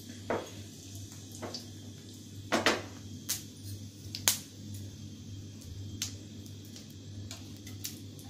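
Cumin seeds frying in hot oil in a non-stick pan: a faint steady sizzle with scattered sharp pops and crackles at irregular moments.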